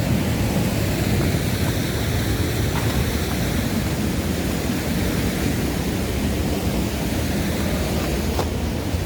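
Steady, loud rush of fast-flowing stream water and a waterfall, a continuous noise heavy in the low end.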